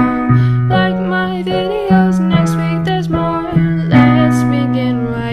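Music: a song with strummed acoustic guitar over a bass line that changes note about every second.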